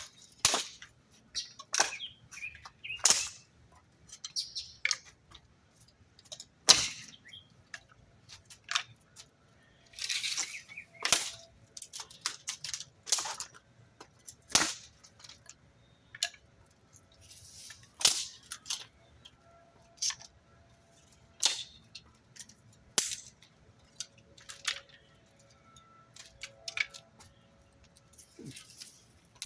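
A Bic lighter being struck over and over, each strike a sharp click every second or two, a few with a short rasp of the spark wheel, while lighting hemp string, rubber bands and Gorilla tape.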